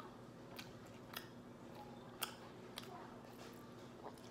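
Quiet closed-mouth chewing of seafood-boil food: scattered faint wet mouth clicks.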